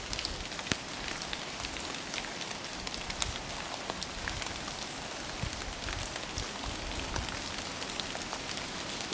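Light rain falling on a wet lane and fallen leaves: a steady soft hiss with many scattered, sharp drop ticks.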